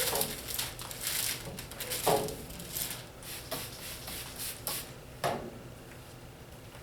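A hard rubber squeegee pushed in strokes over wet film on glass, rubbing and squeaking with short rising squeals, four or five strokes a second or so apart. It stops about five and a half seconds in.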